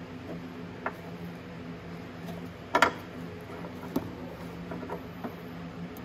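A few light clicks and taps of small parts being handled during hands-on repair work. The loudest is a short rattle of clicks about three seconds in. A steady background hum runs underneath.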